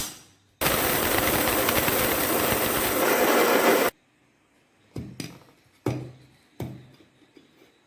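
Electric mixer grinder running in one short burst of about three seconds, grinding dry spices to powder, switched on and cut off abruptly. A few sharp knocks follow.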